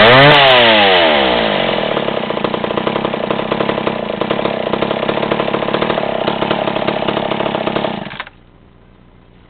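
McCulloch Mac 10-10 Automatic two-stroke chainsaw given one last rev that falls back to a pulsing idle, then shut off; the engine stops suddenly about eight seconds in.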